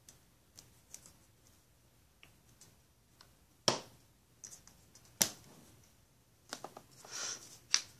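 A small plastic acrylic paint bottle handled while paint is squeezed out onto plastic wrap: scattered light taps and three sharp clicks, with a short rustle shortly before the last click.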